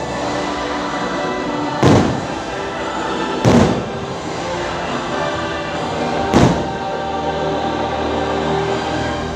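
Fireworks shells bursting with three loud booms, about two, three and a half and six and a half seconds in, over the fireworks show's music with a choir singing.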